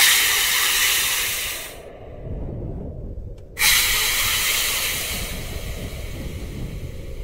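Two loud bursts of hissing, each starting suddenly and fading away over about two seconds, the second about three and a half seconds after the first.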